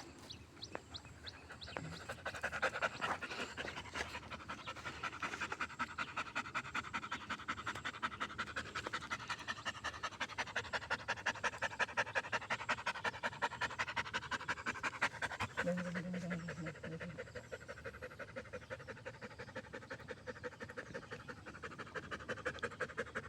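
A dog panting rapidly and steadily, several quick breaths a second, as a tired dog does.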